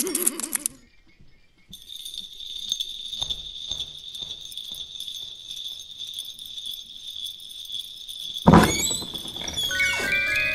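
Eerie horror soundtrack: a thin, high, steady tone with faint ticks under it. A sudden loud hit comes about eight seconds in, then chiming music-box-like notes begin near the end.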